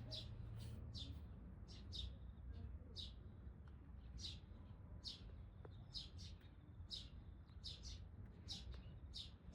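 Small birds chirping over and over in short, quick, falling chirps, a few each second, over a faint low rumble.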